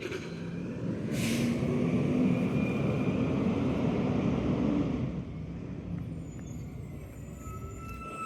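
Garbage truck engine revving up and running hard for a few seconds, then easing back down, with a short burst of air hiss about a second in.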